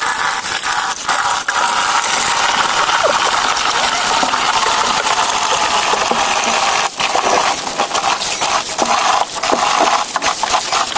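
Water running and splashing steadily, with scattered clicks and knocks throughout.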